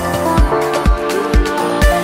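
Electronic dance-style background music with a steady kick drum beating about twice a second under sustained synth notes.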